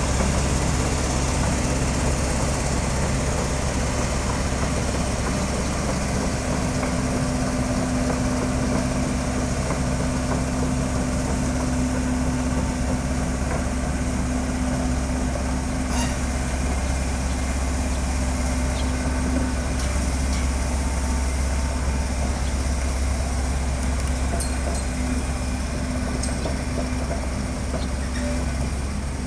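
Heavy diesel engine running steadily without revving, with a few faint clicks partway through.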